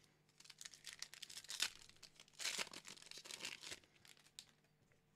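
Foil wrapper of a Pokémon trading-card booster pack being torn open and crinkled, a run of sharp crackling rustles lasting about three seconds that dies away near the end.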